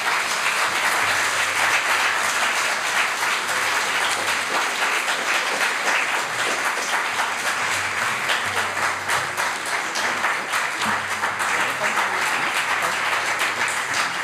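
Audience applauding, a steady mass of hand claps that keeps going without letting up.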